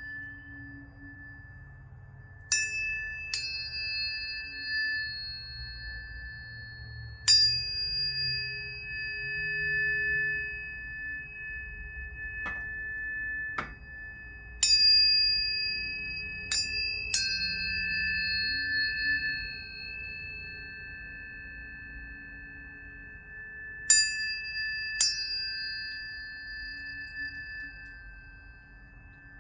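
Biosonics planetary tuning forks struck one after another, often two in quick succession, about eight strikes in all. Each strike gives a bright ping and then a long, pure ringing tone, and the tones overlap and slowly fade into one another.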